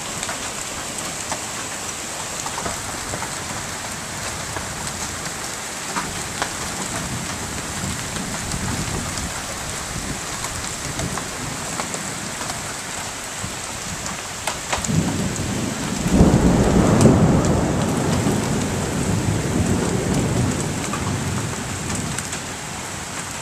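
Thunderstorm: a steady downpour of rain and half-inch hail with scattered sharp hits, and a long low roll of thunder about two-thirds of the way in that peaks soon after it starts and slowly dies away.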